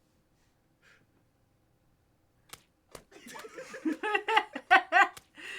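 Near silence, then two sharp clicks, then a person laughing in quick repeated bursts through the second half.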